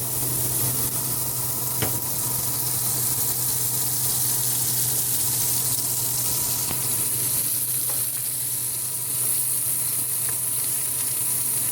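Diced turnips frying in olive oil and chicken drippings in a pan, with a steady sizzle and a few light clicks.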